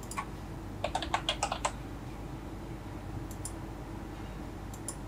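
Typing on a computer keyboard: a quick run of about eight keystrokes about a second in, followed later by two pairs of light clicks.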